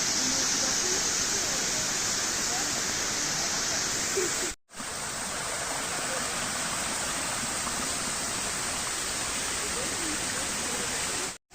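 Waterfall, the steady hiss of falling water, cut off twice by a brief silence, about four and a half seconds in and just before the end.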